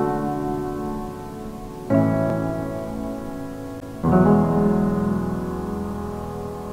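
Slow piano music: a chord struck about every two seconds and left to ring and fade.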